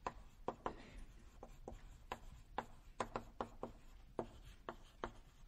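Writing and drawing on a lecture-hall board: a quick, irregular run of short taps and strokes, about three a second.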